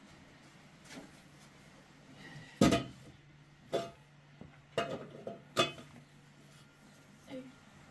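Metal cooking pot being set down on a concrete floor and its lid handled, making a few sharp clanks and clinks; the loudest comes about two and a half seconds in.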